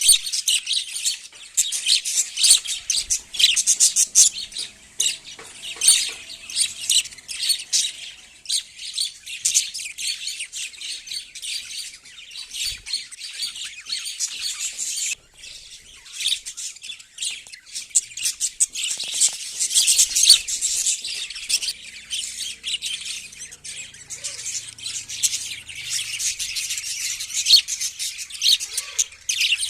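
Many small birds chirping at once, a dense chatter of quick, high, overlapping calls, with a brief break about halfway through.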